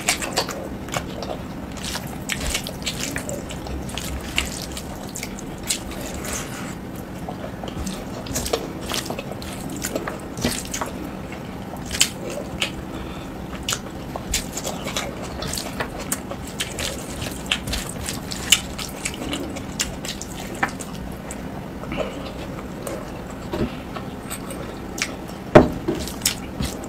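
Close-miked eating sounds: wet chewing and lip smacking, with squelching as food is mixed and picked up by hand, heard as many irregular sharp clicks. One louder click comes near the end.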